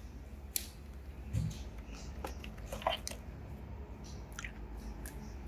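Chilled female swimming crabs being handled in a box packed with ice: a few scattered light clicks and crunches of shell and ice and one soft thud, over a faint low hum.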